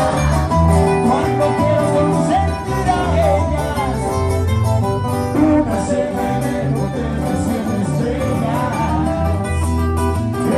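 Live band playing amplified guitar-led music, with bass notes throughout and a voice singing over it.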